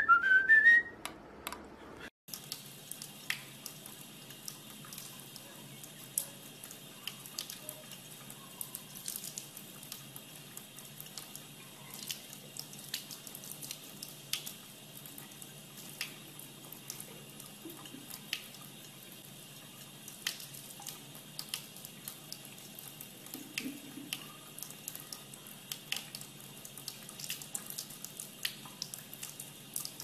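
A thin stream of water running from a faucet, a steady hiss with irregular ticks and splashes. It is preceded by a few whistled notes that cut off suddenly about two seconds in.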